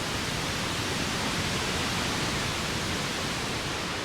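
Synthesized ocean-wave sound: filtered pink-like noise from a VCV Rack noise generator, swelling gently and easing off as LFOs open and close the filter and raise and lower the level, like a wave washing up a shore.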